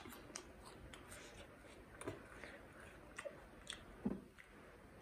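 Quiet, close-miked chewing of a bitten fried veg momo: soft wet mouth clicks and smacks, with a few sharper clicks spread through.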